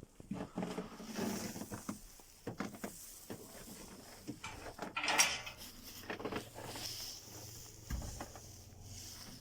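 Scattered clinks and knocks of metal parts or tools being handled, with a louder clatter about halfway through, over a faint low hum.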